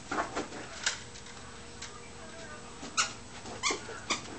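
A squeaky plush dog toy squeaks in short bursts as a German Shepherd chomps on it while carrying it, with about three sharp squeaks in the second half.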